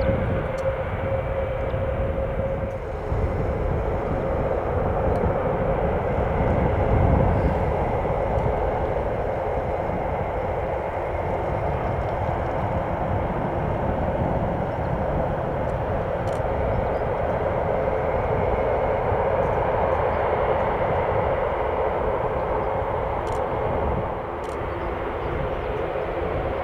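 Airbus A400M's four TP400 turboprop engines running: a continuous engine noise with a steady tone that fades out about three seconds in.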